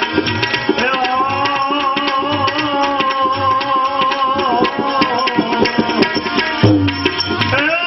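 Instrumental interlude of a Gujarati bhajan: a hand-drum rhythm under a held, gently wavering melody. Near the end the melody drops out for a moment of heavier drum strokes, then slides back in on a rising note.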